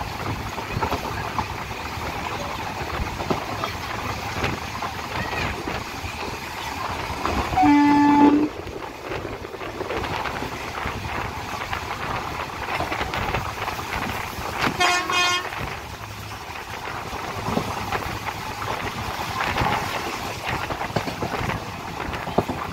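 Passenger train running along the track, with steady rolling and rattling noise. A train horn sounds loudly once about a third of the way in for under a second, and a shorter, fainter, higher horn sounds around two-thirds of the way through.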